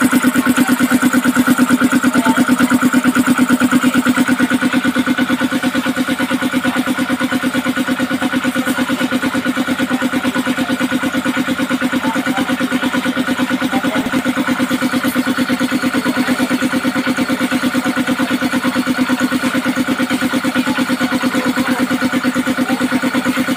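Swan SVU-201 belt-driven piston air compressor, powered by a 1 HP electric motor, running steadily with a fast, even chugging beat from its pump.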